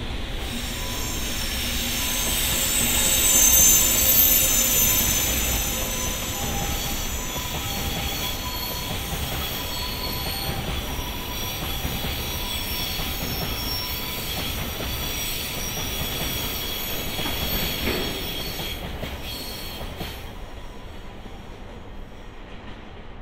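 A freight train of tank wagons rolls past, its wheels squealing in several high, steady tones over a running rumble. It is loudest a few seconds in and fades as the last wagons draw away near the end.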